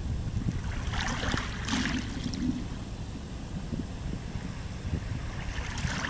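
Small river waves lapping over pebbles at the water's edge, splashing in between one and two seconds in and again near the end. A steady low wind rumble on the microphone runs underneath.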